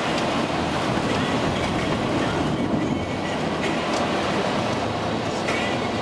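Steady road and tyre noise with engine drone inside a moving car on a wet, slushy road, with a few faint clicks.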